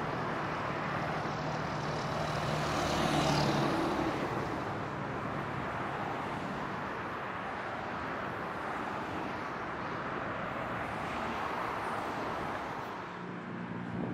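Road traffic on a highway bridge, cars passing with a steady rush of tyres and engines, while an electric light-metro train goes by beyond them. The sound swells about three seconds in as a vehicle passes close, then settles into an even rush.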